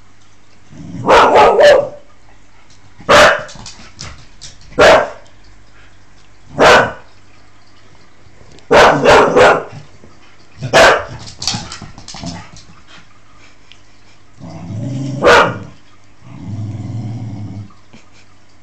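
Staffordshire bull terrier cross German shepherd barking in play: about a dozen sharp barks, some in quick runs of three. Low growling comes near the end.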